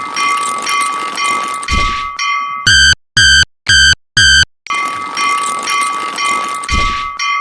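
Japanese railroad-crossing warning bells ringing rapidly and continuously. About a third of the way in they break off for four short, separate pitched tones, about two a second, and then the ringing resumes.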